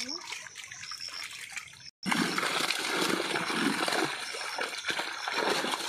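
Shallow water splashing and trickling around a net full of live fish as they are picked out by hand. The sound cuts out for an instant about two seconds in, and the splashing is busier after that.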